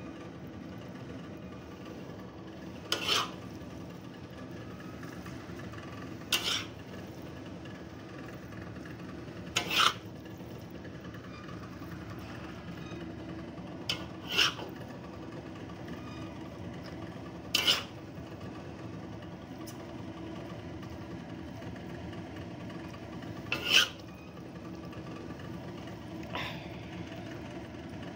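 Metal ladle scraping along the inside of a wok in short strokes every few seconds as braised food is scooped out into a bowl, over a steady background noise.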